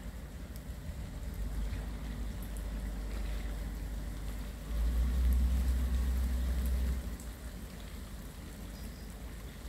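Low rumble of wind buffeting the microphone, with a stronger gust from about five to seven seconds in that starts and stops abruptly.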